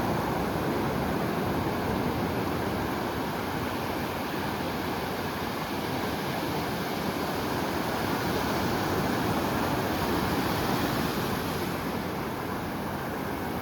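Ocean surf washing on a beach: a steady rush of breaking waves that swells a little about ten seconds in, then eases.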